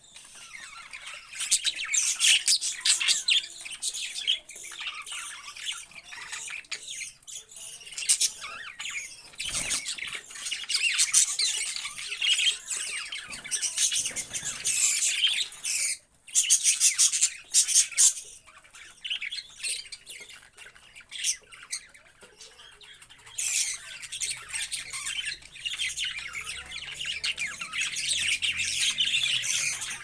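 A flock of caged budgerigars chattering, a dense run of quick high chirps and squawks, with a short pause about halfway.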